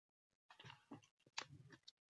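Near silence: faint room tone with a couple of faint ticks.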